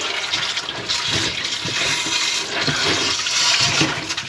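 Water rushing and splashing, a steady hiss that swells a little about three seconds in.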